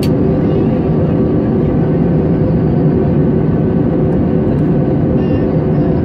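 Steady cabin noise inside a jet airliner: an even, low roar of engines and rushing air, with a few faint steady hum tones in it.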